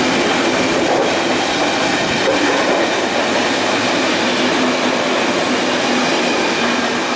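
A passenger train hauled by an SS8 electric locomotive passing at speed. Its wheels make a loud, steady rolling noise on the rails, with some clickety-clack.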